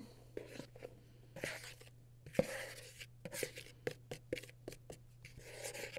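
Dry flour mixture being tipped and shaken out of a plastic mixing bowl into another: faint scattered taps and scrapes on the plastic, with brief soft rustles of pouring flour.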